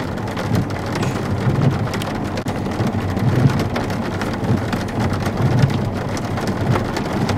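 Heavy rain falling steadily, a dense patter of drops striking, with a low rumble underneath.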